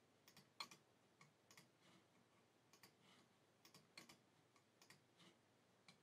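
Faint, irregular clicks of a computer mouse and keyboard, often in quick pairs, a few every second, as entries are copied and pasted into the cells of a data table.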